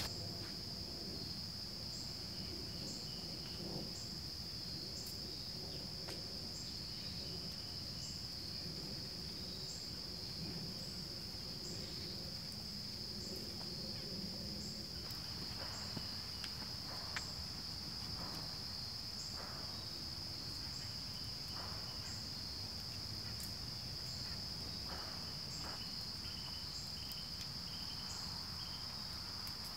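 Insects trilling in one steady, unbroken high-pitched drone, with faint scattered crackles in the second half.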